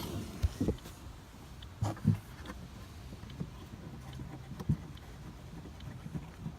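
Scattered light clicks and knocks of hands turning the plastic twist fasteners that hold an Audi TT's rear light unit in the boot, over a low steady rumble.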